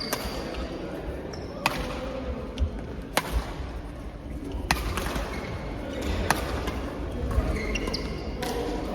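Racket strikes in a doubles rally: five sharp hits about one and a half seconds apart, with short high squeaks near the start and end, over the murmur of a large hall.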